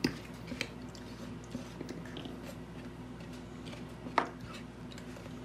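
Thick cake batter being poured and scraped from a plastic mixing bowl into a bundt pan, with soft squishing and a few sharp knocks: one right at the start and the loudest about four seconds in. A steady low hum runs underneath.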